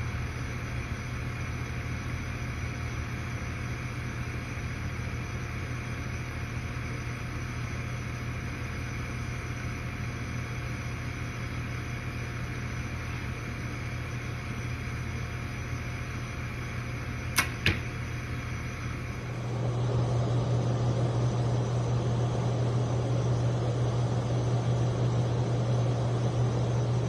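A steady low hum throughout, getting louder about two-thirds of the way through. Near the two-thirds mark there are two sharp cracks about a third of a second apart: a bow shot released with a trigger release aid, then the arrow striking the target.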